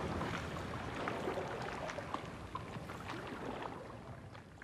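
Shoreline ambience: small waves lapping and washing on the beach, a steady wash with little splashes, fading out gradually toward the end.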